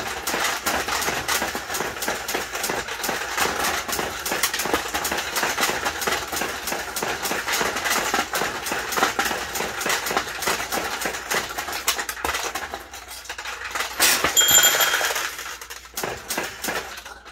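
Steel balls clattering and clinking rapidly through a mechanical pachinko machine's pins and tray as it is played. The clatter thins out, and near the end a bell rings once as balls drain into the exit ramp.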